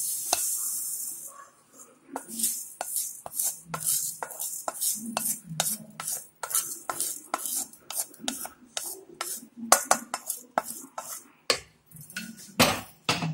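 Dry-roasted split moong dal pouring out of a metal wok into an aluminium pressure cooker, hissing as the grains slide out for about the first second. Then many short taps and scrapes as a wooden spatula pushes the last grains off the wok.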